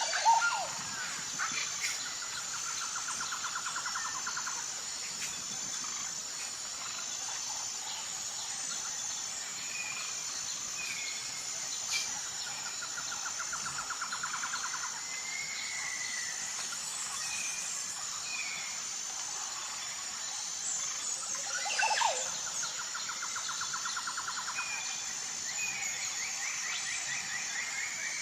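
Nature soundscape: insects chirring in a steady high drone, with several pulsing trills of about two seconds each and scattered bird chirps. A louder sweeping bird call comes at the start and again about 22 seconds in.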